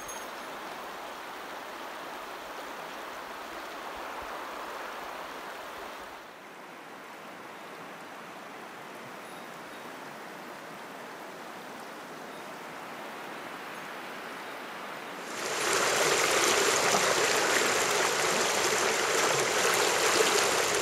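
Steady rush of river water running over a shallow, stony riffle. About six seconds in it drops a little quieter, and after about fifteen seconds a much louder, fuller rush of water takes over.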